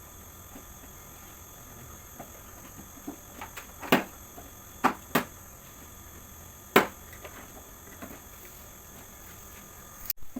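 Sharp plastic clicks and knocks from handling and unfastening a portable air conditioner's casing during disassembly: scattered small ticks, with four louder knocks between about four and seven seconds in.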